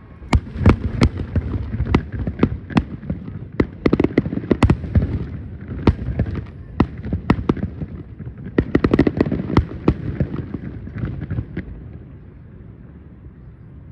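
Fireworks display: rapid volleys of sharp cracks and pops over a low rumble, thinning out over the last few seconds.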